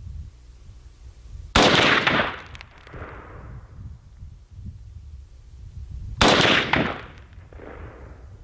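Two shots from a 300 AAC Blackout rifle fitted with a Corvette Comp muzzle brake, about four and a half seconds apart. Each sharp report is followed by a fainter echo.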